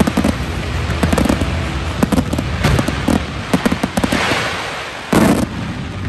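Fireworks display: a dense, rapid crackle of many small pops from glittering crackling stars and ground fountains, with a hiss swelling about four seconds in and one louder bang a little after five seconds.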